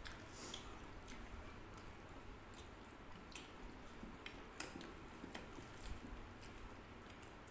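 Quiet eating sounds: people chewing and working rice and curry with their fingers, with scattered small clicks at irregular moments.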